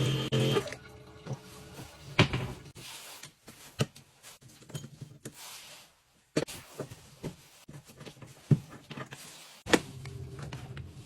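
Kitchen tap: a steady pitched hum cuts off within the first second, then scattered sharp clicks and knocks of handling, about six of them, with a fainter hum returning near the end.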